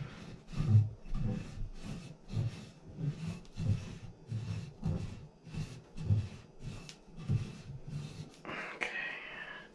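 A rag scrubbing inside a shower valve body in regular strokes, about two a second, each with a dull low thump, scouring out mineral deposits. Near the end the strokes stop and a short hiss of noise follows.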